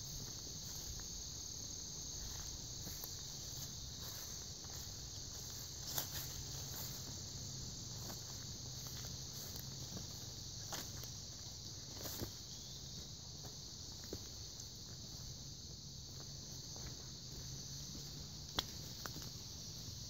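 Steady, high-pitched chorus of insects singing in the woods, with footsteps through the undergrowth and a few sharp snaps, the loudest about six seconds in and near the end.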